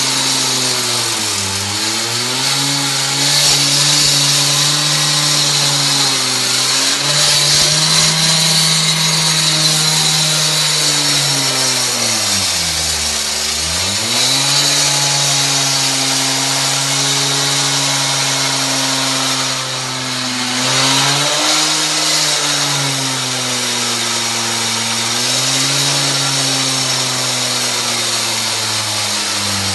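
K12 concrete saw engine running at high speed with a constant high hiss. Its pitch dips briefly about a second in, drops sharply about halfway through and recovers, then sags again a little later.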